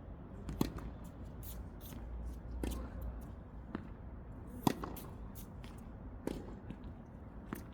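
Tennis balls struck by rackets in a rally drill: four sharp pops about two seconds apart, the third the loudest, with small ticks and scuffs in between.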